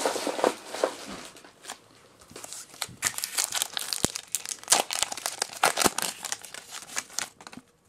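Foil Pokémon booster pack wrapper crinkling as it is handled and torn open by hand. The dense crackling starts about two and a half seconds in.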